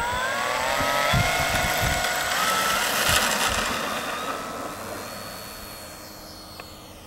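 Electric motor and propeller of a TopRC FW-190 RC warbird, powered by a 3-cell LiPo, whining as the throttle opens for the takeoff roll. The whine climbs in pitch over the first couple of seconds, holds, then fades as the plane lifts off and flies away. A few low thumps come in the first seconds.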